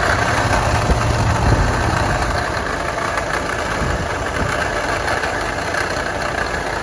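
Nissan Navara turbodiesel engine idling steadily, with a rattle from the alternator, whose bearing is worn.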